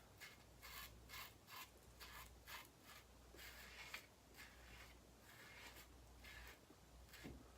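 Faint scratching of a razor drawn through lathered stubble, in short strokes about two a second.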